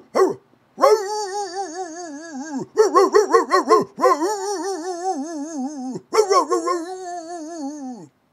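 A man howling like a dog in an exaggerated, wobbling vibrato, mimicking a singer's voice: a short yip, then long wavering howls one after another, each sliding down at its end, with a choppier pulsing howl around the middle.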